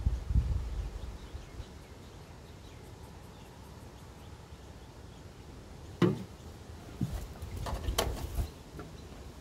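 Handling noise from work on a small generator: low rumbling and bumping at first, a sharp knock about six seconds in, then a few clicks and knocks near the end.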